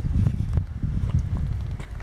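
Footsteps on a brick paver driveway as someone walks with a handheld camera, with short clicks over a low, uneven rumble on the microphone.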